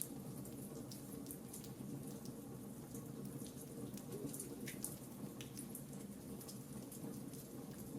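Fire crackling: many small, irregular snaps over a steady low rush.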